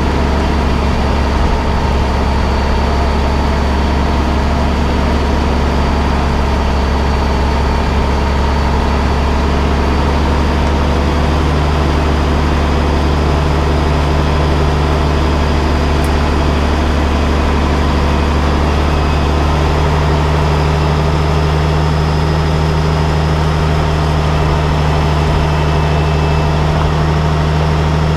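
Steady mechanical hum: a deep low drone with higher whining tones above it, stepping up slightly in pitch about eleven seconds in.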